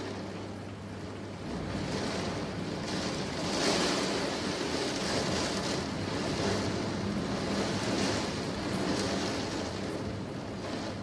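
Storm wind and heavy rain during a violent thunderstorm, a steady rushing noise that swells and eases in gusts, loudest a little under four seconds in.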